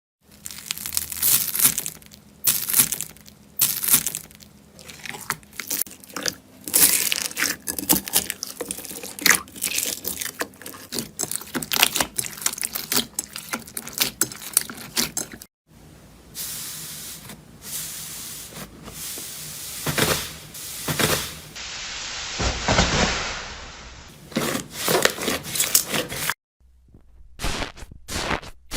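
Slime being squeezed and poked by hand: dense crackling and popping clicks, with a smoother, hissing squish in the middle stretch.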